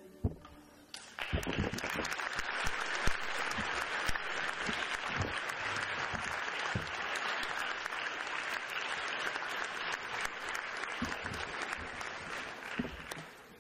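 Concert audience applauding, starting about a second in and fading near the end, with a few low knocks mixed in.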